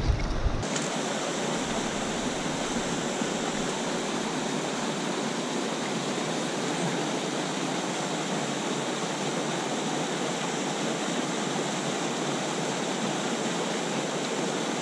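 Small waterfall pouring into a deep plunge pool on a mountain stream: a steady, even rush of falling water.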